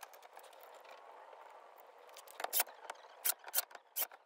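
Sharp, irregular clicks and taps from a cordless drill driver and screws against an electric scooter hub motor's side cover as the screws are lined up, starting about two seconds in. No steady drill-motor whine is heard.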